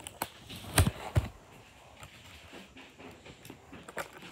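Handling noise from a cardboard box and its packaging being worked open by hand. There are two sharp knocks about a second in, and scattered small clicks and rustles follow.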